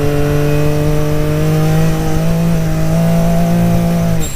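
Can-Am Maverick X3's turbocharged three-cylinder engine running steadily under throttle as the side-by-side drives, its pitch slowly rising, then breaking off abruptly near the end.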